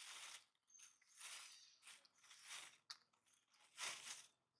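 Macaque biting and chewing lotus seeds and their green seed pod: a run of short, faint crunches about a second apart, with one sharper click near the end.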